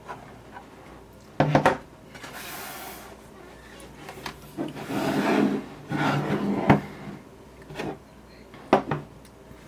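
Steel ratchet wrenches being handled and set down on a hard surface: scattered knocks and clinks, the loudest about a second and a half in, with rubbing and rustling between them.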